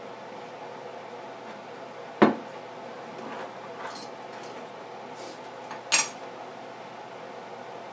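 Tools and parts being handled on a wooden workbench: a few sharp clacks, the two loudest about two seconds in and six seconds in, over a faint steady hum.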